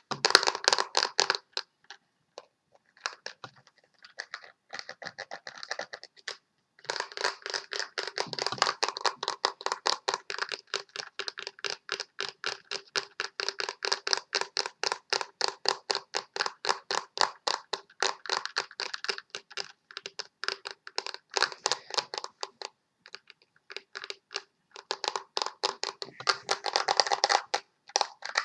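A makeup brush scratching rapidly back and forth across a pressed-powder eyeshadow palette, about five strokes a second. It pauses briefly twice, once before the steady run and once near the end.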